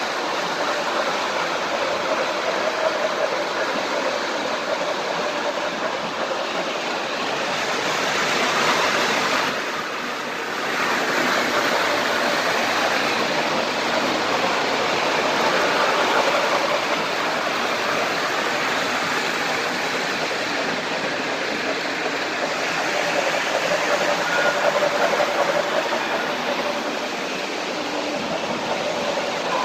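Model trains running on their track: a steady rushing of wheels and motors, dipping briefly about ten seconds in.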